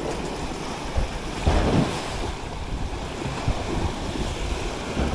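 Sea waves surging and splashing over a concrete pier landing and around its pilings, with wind rumbling on the microphone. A louder wash comes about a second and a half in.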